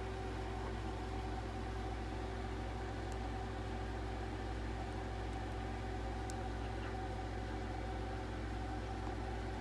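A machine's steady hum: a low drone with two steady tones above it, unchanging throughout, with a couple of faint ticks.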